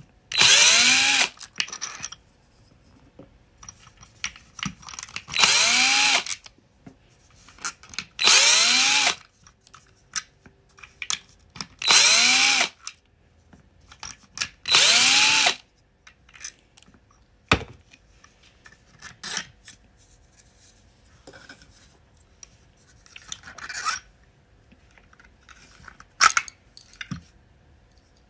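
A small handheld power driver spinning in about five short bursts of roughly a second each, its whine rising in pitch as it spins up, as screws are driven out to take a model apart. Scattered clicks and knocks of parts being handled follow in the second half.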